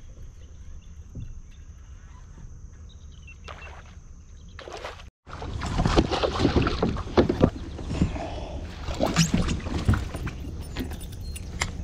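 A hooked smallmouth bass being brought alongside a pedal kayak and lifted aboard: splashing, thrashing and sharp knocks and rattles against the kayak, loud from about five seconds in after a quieter stretch of water and wind noise.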